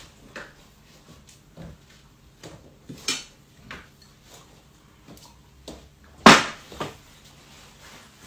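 Scattered light clicks and knocks of household things being handled, with a louder scrape about three seconds in and one sharp, loud knock a little after six seconds in.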